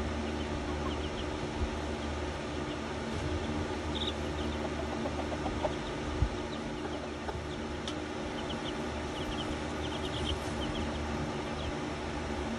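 Six-day-old Silkie chicks peeping in short, high cheeps, in clusters around the middle and toward the end, over a steady low hum. One sharp knock about six seconds in.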